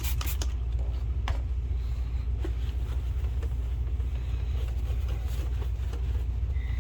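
Steady low background hum, with a few sharp clicks of handling right at the start and another about a second in.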